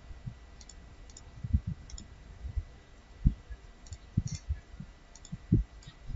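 Computer mouse clicks and keyboard key taps, short and sharp and often in quick pairs, scattered irregularly, with a few dull low thumps that are louder than the clicks.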